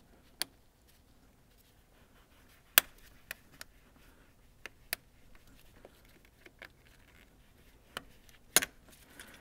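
Pliers and a spring hose clamp clicking and tapping as the clamp is worked back into position on a coolant hose: scattered sharp clicks, the loudest about a third of the way in and again near the end, between quiet handling sounds.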